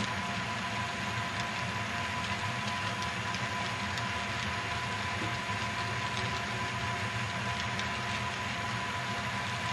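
Model railroad freight train rolling past on the layout's track: a steady rolling noise of the cars' wheels with faint scattered ticks, over a steady thin hum.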